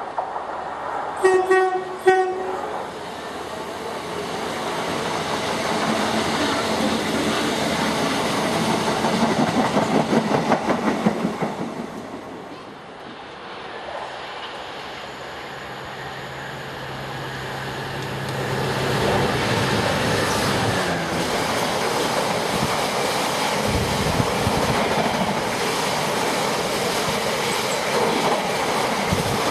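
Class 325 electric multiple unit sounding two short horn blasts about a second in, then running through with a rhythmic wheel clatter that grows louder. Near the middle it gives way to a Class 66 diesel locomotive's steady engine drone, then a long rake of hopper wagons rattling past.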